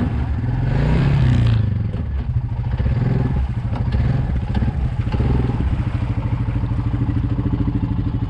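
Quad (ATV) engine revving up about a second in and dropping back, then running steadily at lower revs from about two-thirds of the way on, with a few knocks as the quad works through mud.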